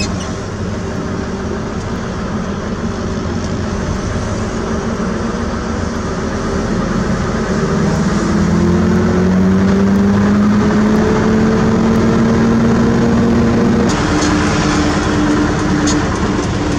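Heavy diesel engine running, its pitch climbing slowly and its level rising as it works harder through the middle, then dropping off suddenly near the end, with a few sharp clicks after.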